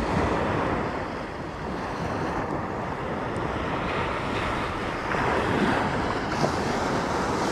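Ocean surf breaking and washing up the beach, with wind on the microphone. The wash eases a second in and swells again about four seconds in.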